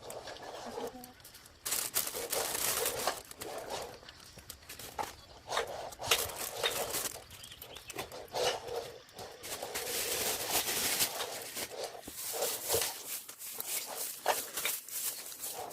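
Packing materials being handled: irregular rustling, crinkling and scraping with short clicks, stopping and starting throughout.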